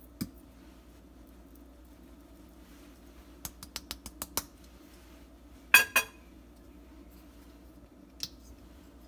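Kitchen utensils and containers being handled: a quick run of about seven light clicks, then two loud clinks a moment apart with a brief ring, and a single click near the end, over a steady low hum.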